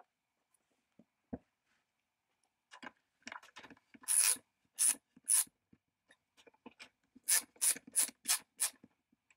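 A single soft knock, then short scraping rubs of a thin wire being worked against the chainsaw's chrome handle bar and metal housing. They come as three strokes, then a run of five at about three a second.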